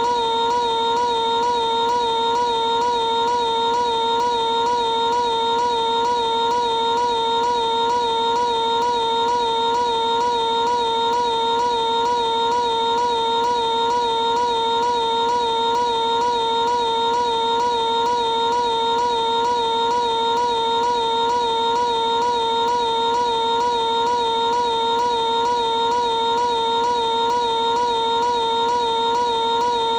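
Cartoon character Piglet's scream, held as one unbroken high-pitched cry with a quick, regular wobble in pitch.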